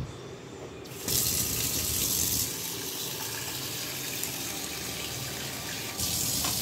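Water running from a tap in a steady, splashing stream, starting about a second in and growing louder again near the end.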